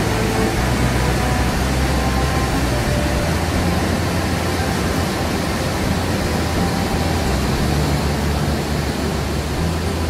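Cane Creek Falls running at high water: a loud, steady roar of heavy water plunging into its pool.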